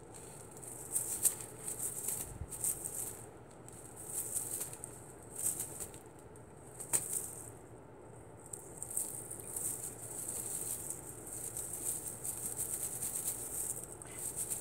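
Crinkly rustling of a peacock sparkler wand toy's tinsel and feathers, swished and shaken in short bursts, with a couple of light clicks.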